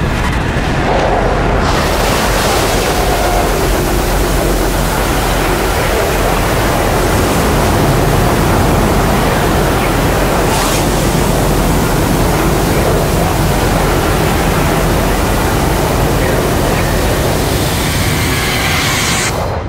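A loud, steady rushing noise of soundtrack sound design, spread evenly from deep rumble to high hiss, that cuts off suddenly near the end.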